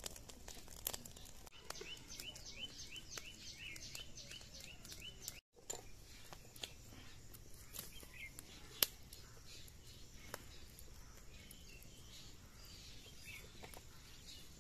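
Faint crackling of a wood fire, scattered sharp pops. For a few seconds a bird repeats short rising chirps, about three a second, stopping about five seconds in.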